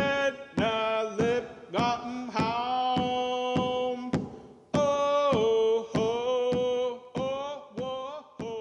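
Background music: a voice chanting a song in long held notes, with a sharp beat at many of the note changes.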